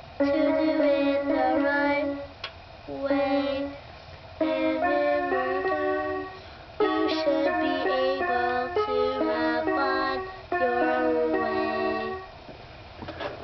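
Toy electronic keyboard played by a child: short phrases of held notes, often several keys at once, separated by brief pauses.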